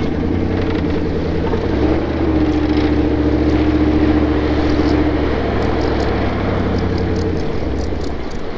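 Tracked Jeep's engine and drivetrain running under load while it tows another vehicle on a rope through snow, with a steady whine that steps up in pitch about two seconds in and falls back a few seconds later.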